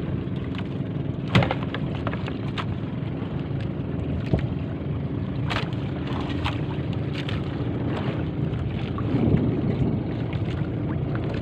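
A boat's engine running steadily, with a few sharp knocks over it; the loudest knock comes about a second and a half in.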